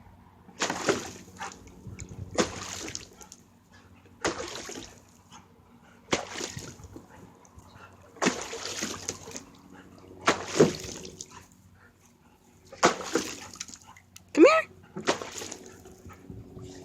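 Dog splashing in a shallow dog pool: bursts of splashing and sloshing water, about one every two seconds.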